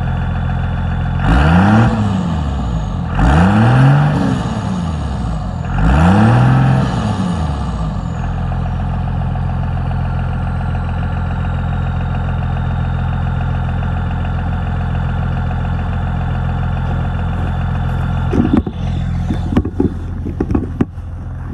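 Cummins 5.9 L 24-valve inline-six turbo-diesel, its HX35 turbo with the silencer ring removed, revved three times from idle, each rev rising and falling over about two seconds. A faint high turbo whistle trails off after each rev, and the engine then settles into a steady idle.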